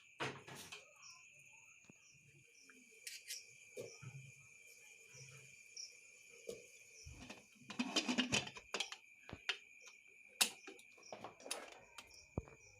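Crickets chirring steadily and high-pitched in the background, with scattered knocks and clatters of kitchen utensils and dishes being handled.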